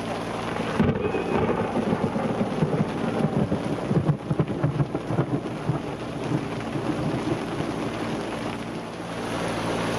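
Rain falling on a sailboat and the sea around it, a steady hiss with many irregular low thumps and rumbles, strongest in the middle and easing near the end.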